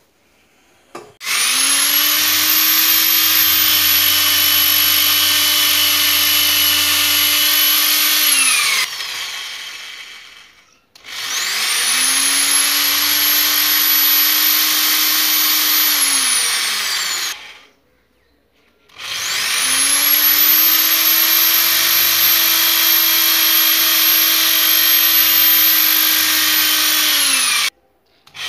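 Corded electric drill boring holes into a plastered wall, run in three long bursts of several seconds each. Each burst is a steady whine that rises in pitch as the drill starts and falls as it stops, with short pauses between.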